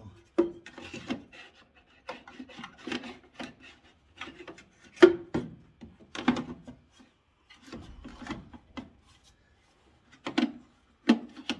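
Hard plastic headlight-assembly parts and clips being worked by hand, scraping, rubbing and knocking in a string of short irregular bursts with sharp clicks.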